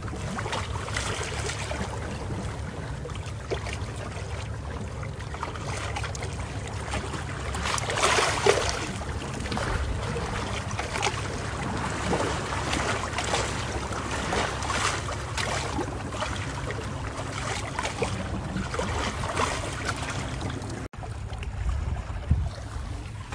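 Waterfront marina ambience: a steady low hum and rumble with wind on the microphone and water lapping, louder for a moment about eight seconds in. The sound cuts off abruptly and restarts about two seconds before the end.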